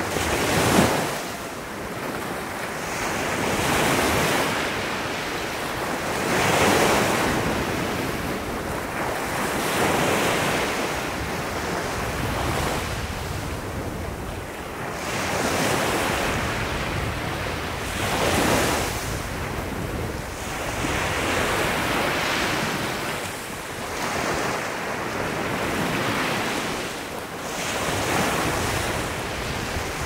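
Small sea waves breaking gently and washing up a sandy shore, each wash swelling and fading every few seconds. A light wind rumbles on the microphone underneath.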